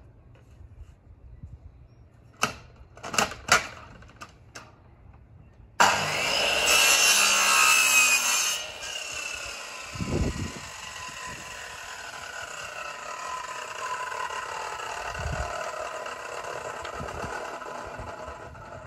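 A few sharp knocks, then an electric mitre saw starts with a sudden loud burst and cuts through a length of wooden frame moulding for about two and a half seconds, its blade blunt and buckled. The blade then spins down with a slowly falling whine for about ten seconds, with a thud partway through.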